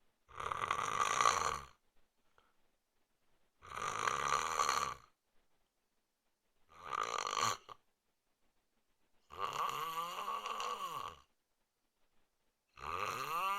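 A man snoring: five snores spaced about three and a half seconds apart, each lasting a second or two, the later ones rising and falling in pitch.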